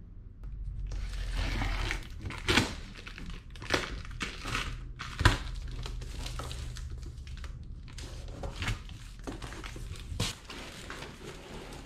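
A cardboard shipping box being opened by hand: flaps tearing and scraping, and the plastic wrapping inside crinkling. Several sharp knocks of cardboard are heard, the loudest about five seconds in.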